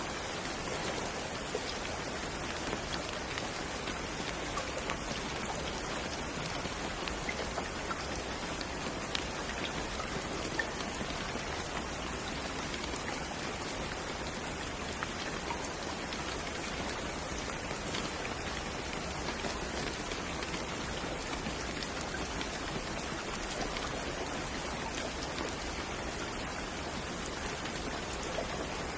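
Steady rain falling on a surface, an even hiss of many drops with faint individual drop ticks here and there.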